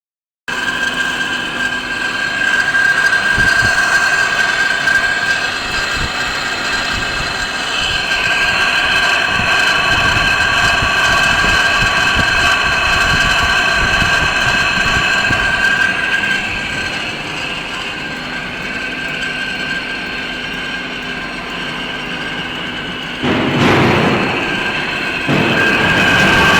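Metal lathe turning a steel rolling-mill roll, the cutting tool on the steel giving a steady, high-pitched squealing whine over machine noise. About three seconds before the end, a louder, rougher noise cuts in for about two seconds.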